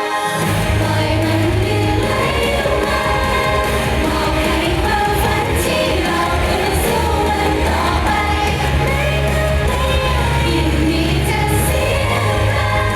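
Live pop song with female group singing over a backing track; a heavy bass line comes in about half a second in.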